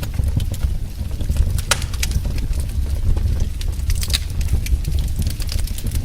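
Wood fire burning with a steady low rumble and scattered sharp crackles and pops, a few each second.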